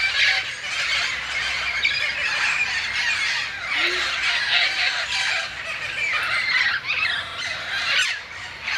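A large flock of wild parrots squawking, many harsh calls overlapping without a break.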